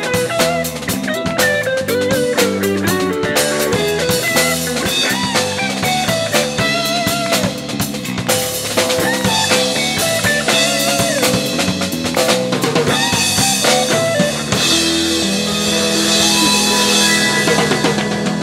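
Live jazz-funk fusion band playing: a busy drum kit with snare and rimshots, a bass line and a lead melody with bending notes. About fifteen seconds in the band settles onto a long held chord under a wash of cymbals.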